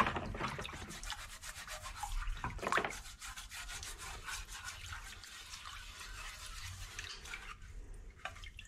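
Hand rubbing over a wet, citric-acid-soaked rusty steel plate in a series of strokes, smearing off the softened surface rust; the loudest strokes come right at the start and again near three seconds in.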